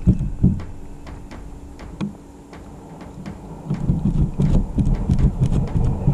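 Cat licking and rubbing its muzzle on the camera right at the microphone: a close, dense run of wet licks, knocks and fur brushing. It eases off about half a second in and picks up again at about four seconds.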